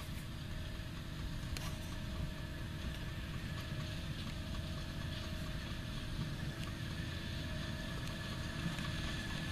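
Ropa Tiger 4 sugar beet harvester running steadily as it lifts beets, heard as a steady low engine drone with a faint steady whine of machinery over it.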